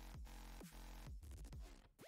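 Background electronic dance music, fairly quiet, with a steady deep bass and falling bass slides about twice a second.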